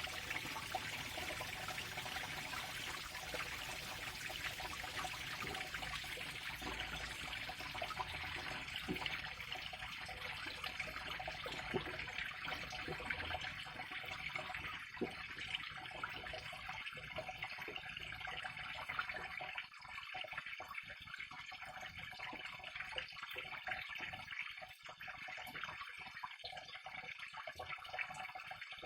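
Water flowing and trickling steadily, with small splashes, growing a little quieter about twenty seconds in.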